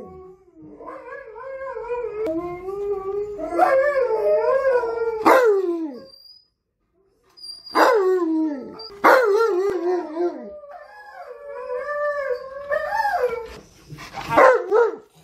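Malamute-type dogs howling and 'woo-woo' talking in long, wavering howls whose pitch slides up and down. They break off for about a second and a half midway, then start again with sharply falling yowls and more wavering howls.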